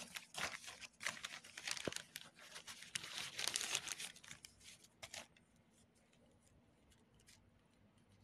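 Plastic courier mailer bag crinkling and tearing as it is pulled open by hand, in irregular bursts of rustling that stop a little over five seconds in.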